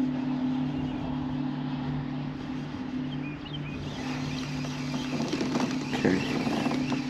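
A steady, low motor hum holding two even pitches, with faint clicks and rustling from about five seconds in.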